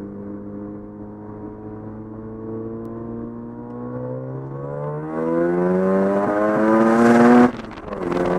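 Mazda FD RX-7's street-ported 13B twin-rotor rotary engine with a single turbo, accelerating, heard from inside the cabin. Its note climbs steadily and grows louder, with a hiss joining in about five seconds in. Near the end it cuts off sharply for an upshift and picks up again at lower revs.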